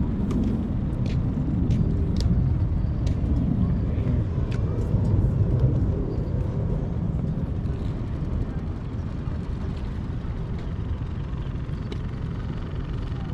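Steady low outdoor rumble on an open pier, with a few faint clicks in the first five seconds, easing a little after about six seconds.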